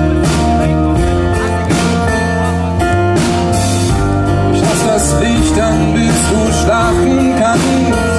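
Live pop-rock band playing: strummed acoustic guitars and a drum kit, with a voice singing over them.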